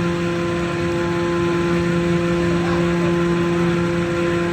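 Steady engine drone: one unchanging hum with a few fixed higher tones above it and a rough noise underneath, with no revving or change in pitch.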